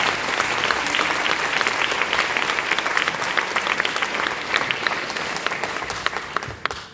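Audience applauding, a dense mass of hand claps that dies away near the end.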